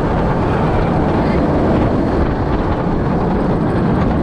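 Loud, steady rush of wind on the microphone mixed with the running rumble of a Bolliger & Mabillard inverted roller coaster train on its track, heard from a rider's seat mid-ride.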